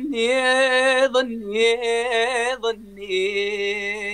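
A man singing unaccompanied, holding three long, wavering vowel notes with short breaks between them, stepping down in pitch toward the end.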